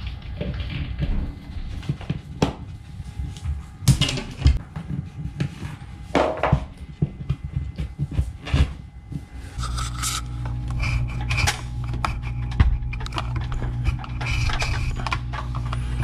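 Steel fish tape being pulled out through a small hole in drywall with pliers, scraping and rubbing on the edge of the hole with scattered clicks and knocks. About ten seconds in, a steady low hum starts, with light rustling over it.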